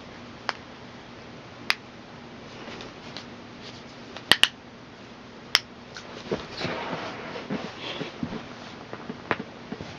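Sharp joint cracks from a chiropractic-style adjustment: about six separate pops, two of them in quick succession about four seconds in, with softer rustling in between.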